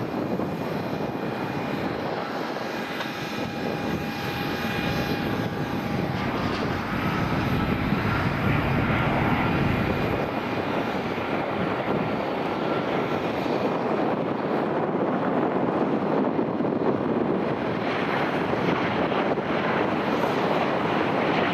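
Boeing 737-800's CFM56 turbofan engines on final approach: a steady jet rumble with several high whining fan tones over it, growing a little louder about a third of the way in as the airliner nears.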